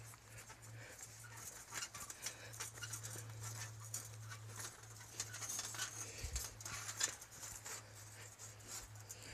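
Footsteps of a person walking briskly on a dirt forest trail, irregular soft steps with a faint steady low hum underneath.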